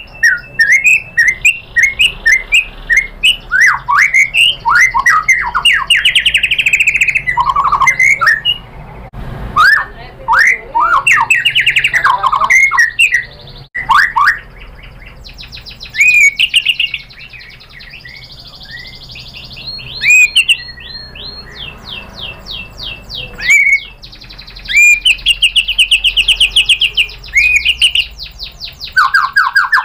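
White-rumped shama (murai batu) singing loudly: a rapid, varied run of whistled notes, sliding phrases, chirps and fast trills, with a couple of short breaks past the middle.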